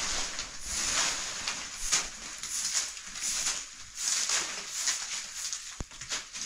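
Repeated brushing strokes, about one a second, scraping or swishing over a surface.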